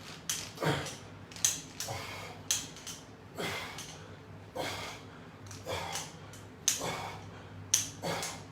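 A man working out with resistance bands: short breaths and clicks repeating roughly once a second, with two sharper clicks near the end.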